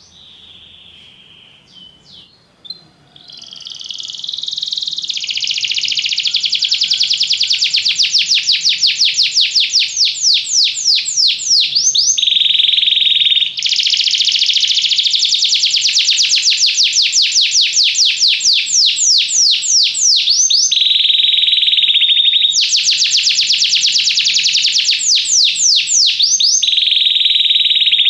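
Belgian canary singing: after a quiet opening, a long song of fast rolling trills, rapid repeated notes sweeping downward, starts about three seconds in. The trills are broken a few times by short stretches of a steady whistled note.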